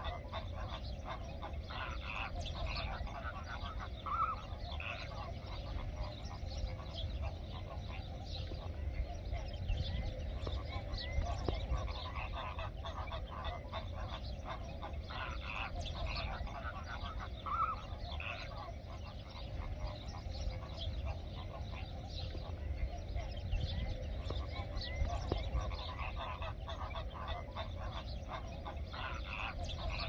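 A large flamingo flock honking and chattering: a continuous, overlapping mass of short goose-like calls with no pause.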